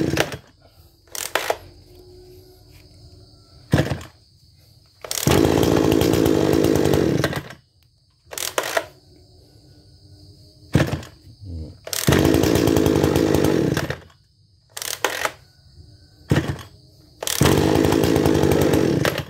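AGRIP A270H (Kawasaki TJ27-type) 27cc two-stroke brush cutter engine pull-started with short, light pulls of the recoil starter. It catches and runs for about two seconds, then cuts off suddenly, three times, with shorter pops in between. Each time it fires briefly without fully starting because the pulls are deliberately gentle.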